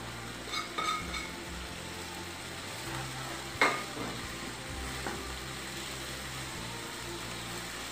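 Semolina being added to a pan of boiling, sizzling water and stirred in with a wooden spoon: a steady bubbling sizzle with spoon scraping, a few light clinks about a second in, and one sharp knock against the pan about three and a half seconds in.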